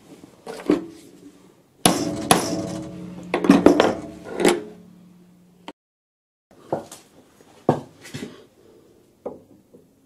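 Metal clinking and knocking from hand tools on metal, with several sharp strikes and a ringing tone in the first half. After a short silence come a few separate, lighter knocks.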